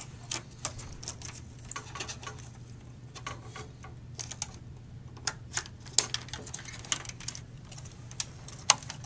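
Irregular small clicks and taps of plastic cable connectors and the metal case of an old Dell desktop computer as cables are worked loose by hand, over a low steady hum.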